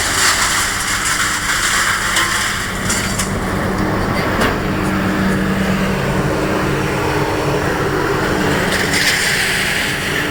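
A motor running steadily, with a few knocks and rattles.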